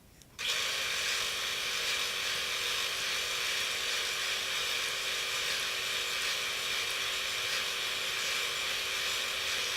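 Bridgeport milling machine running steadily, a steady hiss with a faint hum, as a 1/8 inch drill bores a hole through a shaft. The sound starts suddenly about half a second in.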